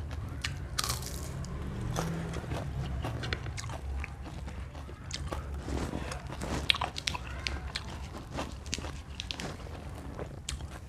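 Close-up chewing and crunching of raw lalapan, crisp raw vegetables bitten and chewed with many irregular sharp crackles, over a low steady hum.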